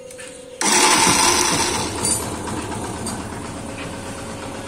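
Yamaha FZ version 2's electric starter cranking its single-cylinder engine, with a loud, bad sound that comes in suddenly about half a second in, then easing into a steady running sound. The bad noise at self-start comes from the starter pinion, whose teeth are worn down and half cut away; the one-way starter bearing is sound.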